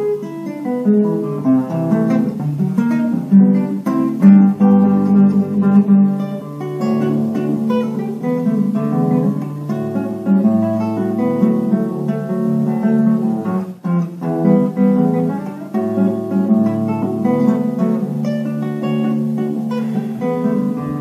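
Solo classical guitar playing a Brazilian choro, a quick plucked melody over bass notes, with a brief break about two-thirds of the way through.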